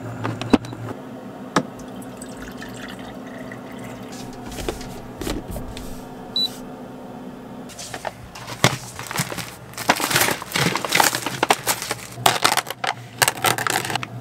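Kitchen handling over a steady low hum: a few sharp clinks of dishes, then from about eight seconds in a dense run of crackling, splashing noise.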